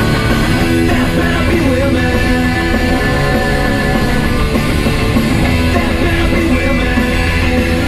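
Rock music playing at a steady, loud level.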